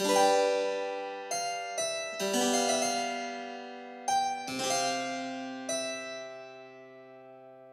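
Background music: a keyboard instrument playing slow chords, each struck chord ringing out and slowly fading before the next.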